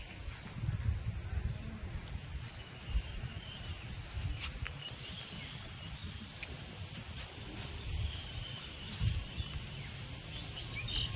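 Insects trilling steadily in a high, evenly pulsing chorus, with a low buffeting rumble on the microphone and a few faint clicks.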